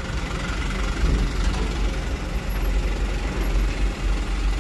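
Busy road traffic passing close by: a steady mix of vehicle engines and tyre noise with a strong low rumble.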